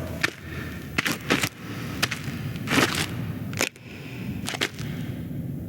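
Film sound effects: a series of sharp cracks or snaps, about six spread irregularly, over a steady low rumble.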